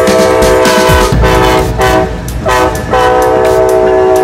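Amtrak GE Genesis diesel locomotive's air horn sounding as it passes close by: a long blast ends about a second in, then come a few short blasts and another long blast near the end, over the low rumble of the moving train.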